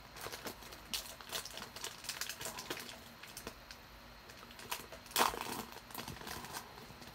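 Trading cards and their plastic wrapping being handled: soft crinkling and small clicks, with a louder crackle about five seconds in.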